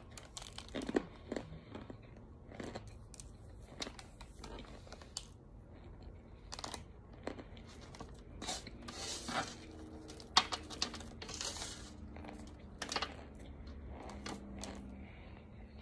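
Chunks of compressed cornstarch crunching and crackling in an irregular series of sharp crunches, with longer crumbly stretches about nine and eleven seconds in.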